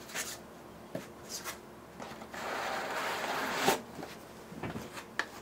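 Foam insert and cardboard packaging of a graphics-card box being handled: a few light taps, then a drawn-out rubbing scrape as a piece slides against the box, ending in a sharp knock as it is set down, followed by small clicks.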